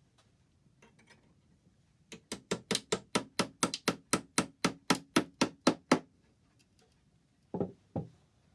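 Rapid light hammer taps on the wooden moulding of a longcase clock's hood, about twenty quick strikes at roughly five a second for four seconds, to knock the damaged moulding loose. Two duller knocks follow near the end.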